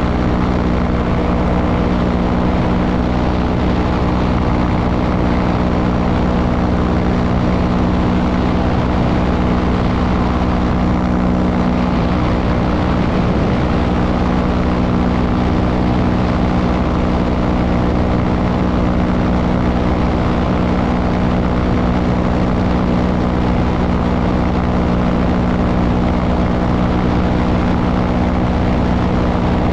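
Small propeller-driven aircraft's engine and propeller droning steadily in level cruise flight, heard on board, with no change in engine speed.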